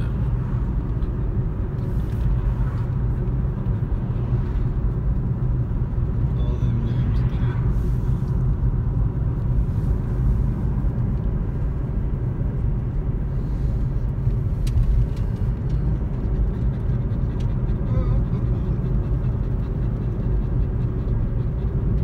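Car driving along wet pavement, heard from inside the cabin: a steady low rumble of tyre and engine noise.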